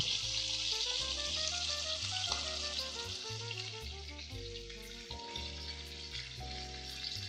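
Chicken pieces sizzling as they are laid into hot vegetable oil in a cast iron pot, a steady frying hiss. Soft background music with a slow run of held notes plays underneath.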